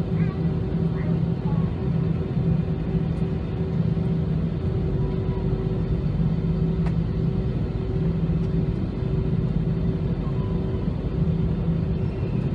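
Cabin noise inside an Airbus A320 holding on the ground: the engines running at idle as a steady drone, with a constant low hum.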